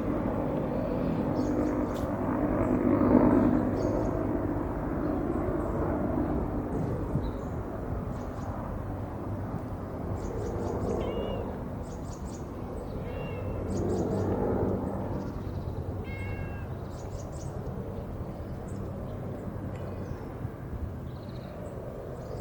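A cat meowing several times, with short high calls, over a steady low background noise.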